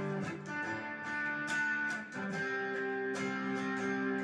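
Squier Paranormal Offset Telecaster electric guitar strumming chords on its single-coil bridge pickup, through a 20-watt amp on the clean channel with a little distortion. A new chord is struck about every second and a half and left to ring.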